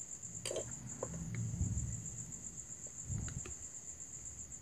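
A cricket trilling steadily in a fine, even pulse throughout, with a few light clicks and knocks from the plastic LED bulb housing being handled.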